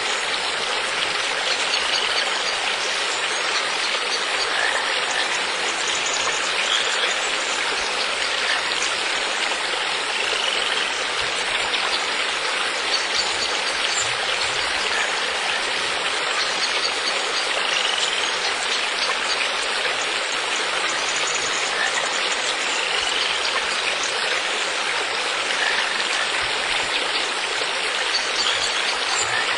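Steady running water, like a stream or water feature, with faint short high chirps every few seconds.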